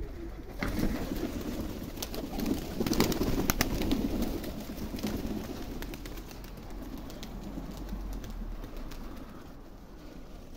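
Flock of young domestic pigeons cooing at their loft, busiest a few seconds in with a run of sharp clicks, then quieting toward the end.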